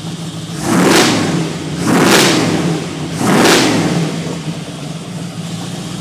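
Jeep Wagoneer engine idling, then revved three times in quick succession, each blip rising and falling back, before it settles into a steady idle.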